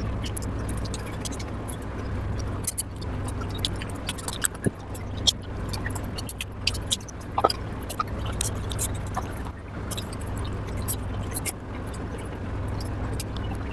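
Close-miked eating: irregular wet mouth clicks and chewing sounds from mutton fat curry and luchi being eaten, over a steady low hum.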